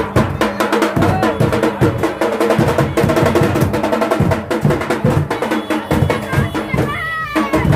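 Fast, continuous procession drumming, dense rapid beats like a drum roll, with crowd voices under it. The drumming drops out briefly near the end.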